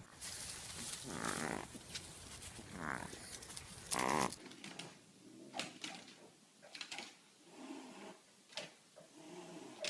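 An animal calling: a few short pitched cries, the loudest about four seconds in, then scattered shorter sounds and knocks.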